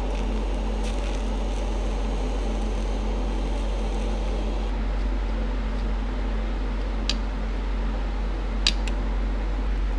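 Steady mechanical hum with a constant low drone, and two short sharp clicks near the end.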